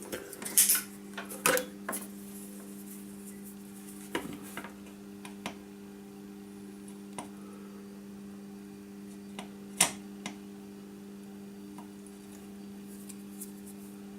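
Scattered small clicks and knocks of metal tools and parts being handled on a workbench, the loudest two just after the start and about ten seconds in, over a steady low hum.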